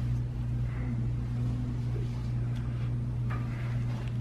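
A steady low mechanical hum, with a few faint clicks near the end.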